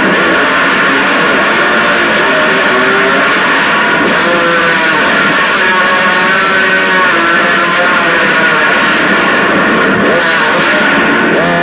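Homemade amplified noise instrument: a small electric motor held against metal rods, its vibration picked up and played loud through an amplifier. It makes a dense, distorted drone full of wavering tones that slide up and down.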